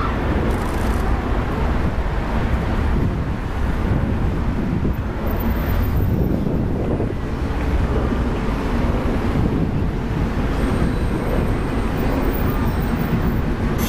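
Steady low rumble of wind on the microphone mixed with road traffic.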